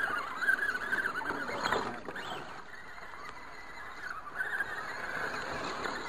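Axial SCX10 scale RC crawler's electric motor and gears whining, the pitch wavering up and down with the throttle as it crawls through shallow creek water. The whine fades about two seconds in and comes back a little after four seconds.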